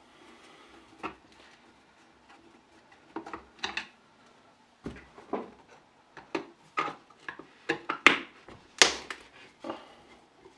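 Hard parts and tools being handled on a workbench: irregular clinks and knocks, sparse at first and more frequent from about halfway, with the sharpest two about eight and nine seconds in.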